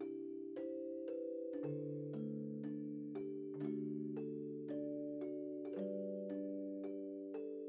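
Gentle background music on a mallet instrument like a vibraphone: single struck notes about twice a second, ringing over held low tones.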